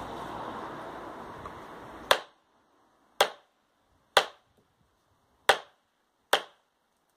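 Five sharp chops of an MSK-1 survival knife's blade biting into a wooden batten across the grain, about one a second. Before the first chop there is a steady background rush that cuts off abruptly.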